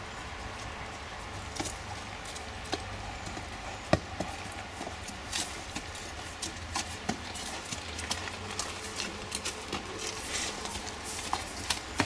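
A horse walking on dirt and gravel: scattered irregular hoof clicks and crunches, the sharpest about four seconds in, over a steady low rumble.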